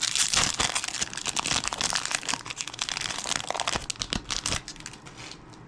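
Trading-card pack wrapper being torn open and crinkled: a dense run of crackles that dies away near the end.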